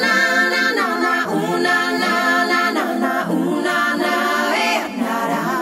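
Background vocal music: voices singing a cappella in long held notes that glide between pitches.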